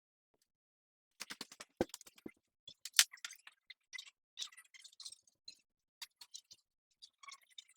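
A scattered run of small clicks, taps and scrapes, like hard parts being handled, with one sharper click about three seconds in.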